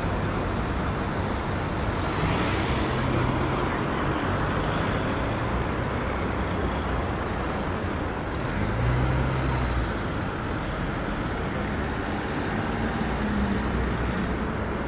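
City street traffic: a steady wash of road noise with engines of passing vehicles swelling about two seconds in and again around nine seconds.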